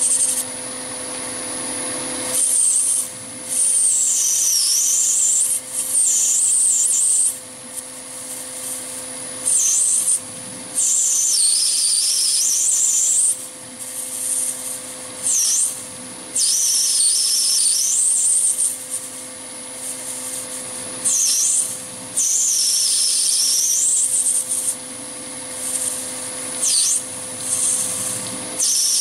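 Chinese mini lathe running with a steady whine while a cutting tool turns brass bar stock. The cut comes in repeated bursts of high-pitched hiss and squeal, each one to two seconds long with short pauses between, as the tool is fed into the brass.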